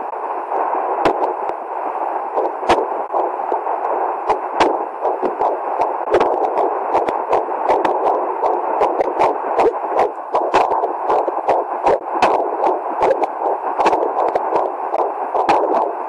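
Fetal Doppler's steady whooshing signal, broken by many sharp, irregular knocks that come more often after about four seconds: an unborn baby hiccupping.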